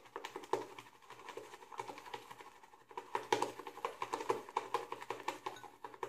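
Omega Hi-Brush synthetic shaving brush whipping Cella shaving cream into a watery lather in a large bowl: rapid wet strokes, several a second, with the brush knocking against the bowl, louder from about three seconds in.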